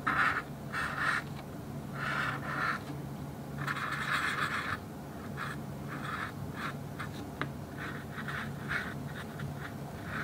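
Black felt-tip marker drawing on a shikishi art board: scratchy pen strokes, a longer stroke about four seconds in, then a run of short quick strokes. A low steady hum runs underneath.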